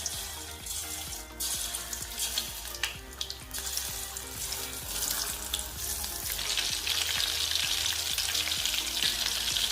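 Masala-coated soya chunks going into hot oil in a kadai and deep-frying with a sizzle that starts suddenly and grows louder about six seconds in.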